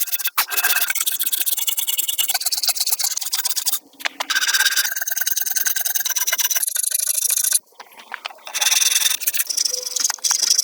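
Wood being worked by hand with a rasping, scraping tool, in steady runs of a few seconds with two short pauses.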